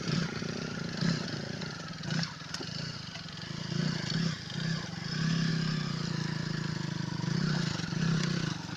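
Honda CRF150L's single-cylinder four-stroke engine revving in repeated surges under load as the bike struggles through deep mud, loudest in the second half.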